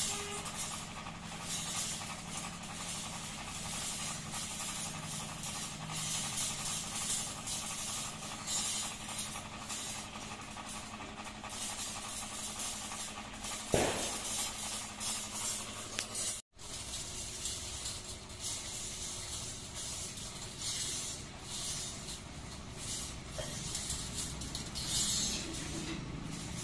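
Steel fencing wire clinking and scraping as zigzag chain-link pieces are handled on a concrete floor, over a steady hum, with one louder knock about halfway through and a brief gap in the sound soon after.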